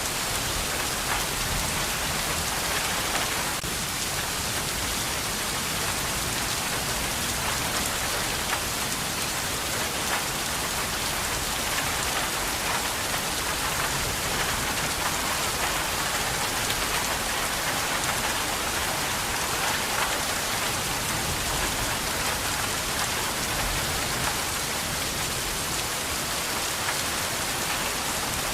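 Steady heavy rain falling, an even hiss with scattered drops pattering on a surface.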